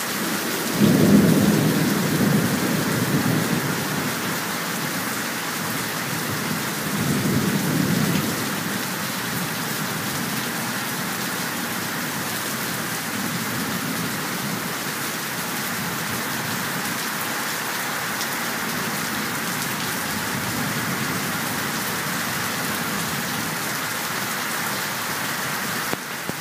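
Heavy thunderstorm rain falling steadily, with rolls of thunder: a loud rumble about a second in, another around seven seconds, and fainter ones later.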